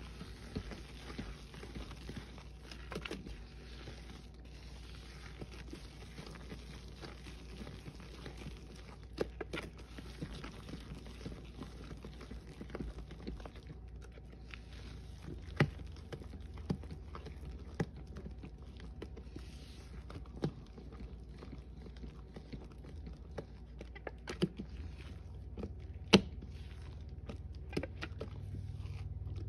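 Gloved hand squishing and stirring a thick paste of Lime Ajax cleanser powder in a stainless steel bowl: soft crunching and squelching with scattered sharp clicks.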